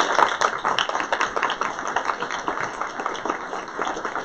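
Audience applauding: many hands clapping, loudest at the start and easing off slightly.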